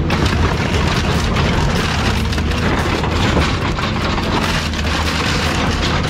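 Heavy excavator's diesel engine running under a steady low hum while a car body is crushed and torn apart, with dense crunching and cracking of metal and glass.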